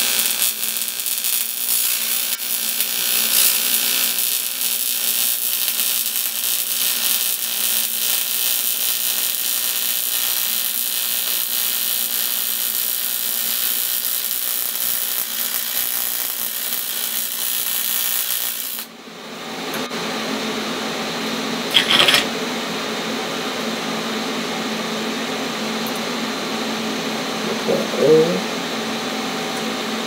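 AC TIG welding arc on 1/8 in aluminium from an AHP AlphaTIG 200X, a steady harsh buzzing hiss that cuts off sharply about 19 seconds in. After the arc stops, a steady lower hum remains, with a sharp click a few seconds later.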